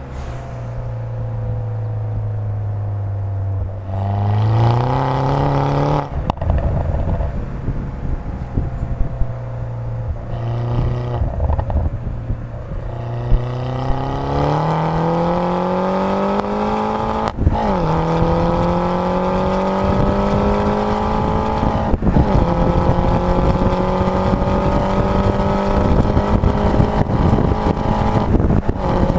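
Modified Mini Cooper R56 John Cooper Works, its 1.6-litre turbocharged four-cylinder with an Akrapovic downpipe, accelerating hard. The engine note holds steady for a few seconds, then climbs through the revs, dropping sharply at gear changes about six and seventeen seconds in, before rising again.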